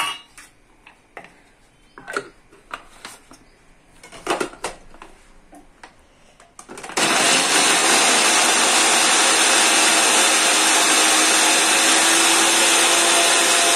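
Light knocks and clicks as chopped bottle gourd pieces go into a plastic chopper jar and its lid is fitted; then, about halfway through, an electric food chopper's motor starts and runs steadily for about seven seconds, crushing the gourd, and stops.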